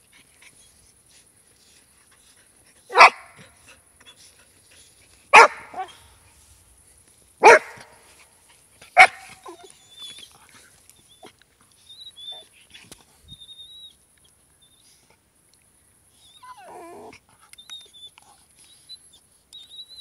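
Irish Glen of Imaal Terrier barking four times in the first half, loud and sharp, about every two seconds, during rough play with another terrier. Softer dog noises follow.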